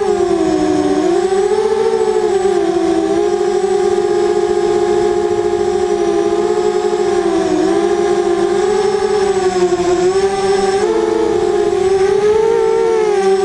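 Motors and propellers of a four-motor FPV racing quadcopter in flight, heard from its onboard camera. It has T-Motor 2000Kv brushless motors with 5045 bullnose props on a 4S battery. The whine is loud and steady, and its pitch wavers up and down as the throttle changes, dipping about a second in and again a little past halfway, then rising briefly near the end.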